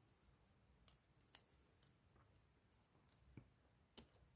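A few faint, scattered metallic clicks and ticks from a steel core shim probing the warding inside an antique Yale 905 1/2 push key padlock while trying to reach the pins.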